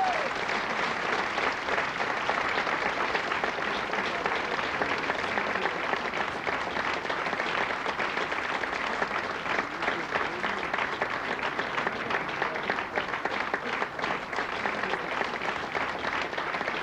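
Audience applauding steadily: dense, continuous clapping from a full house.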